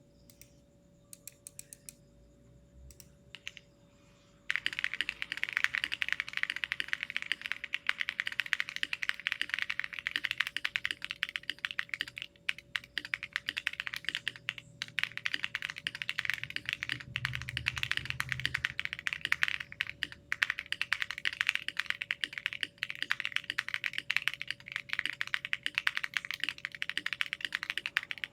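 Typing on a Thera75 v1 polycarbonate mechanical keyboard, built plateless with case foam, lubed Designer Studios Starry switches, Owlabs stabilizers and PBT cherry-profile keycaps. A few faint clicks come first, then fast, continuous keystrokes start about four and a half seconds in. A faint steady hum lies underneath.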